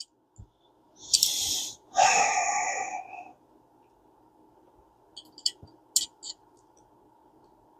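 Vintage Daiwa 7250RLA spinning reel's small metal parts being worked by hand: a short rasp about a second in, then a longer whirring rasp of about a second, then a handful of light metal clicks.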